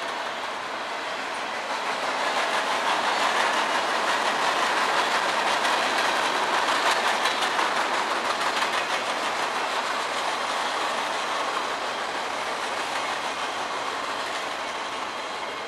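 Freight train boxcars rolling past: a steady rush of steel wheels on rail with clicking over the rail joints. It grows louder about two seconds in and eases off toward the end.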